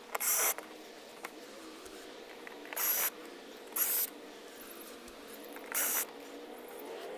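Cordless DeWalt drill/driver run in four short bursts, its motor whining each time as it backs screws out of a plastic RV fender shroud.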